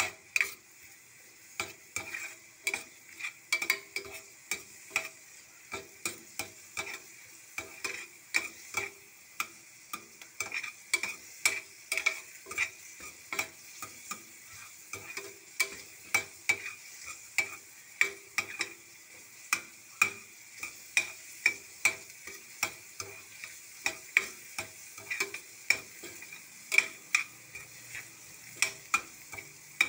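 Spatula knocking and scraping against a stainless steel frying pan about twice a second, each stroke with a short metallic ring, while chopped onion and garlic sizzle lightly in oil.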